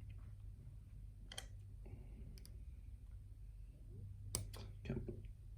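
Faint, scattered metallic clicks of a hook pick and tension wrench working in a padlock's keyway, a few separate clicks with the loudest about four seconds in, over a steady low hum.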